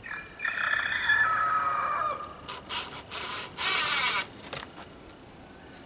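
A bantam rooster crows once for about two seconds, its pitch falling at the end. A cordless drill then gives a few short harsh bursts against the boards.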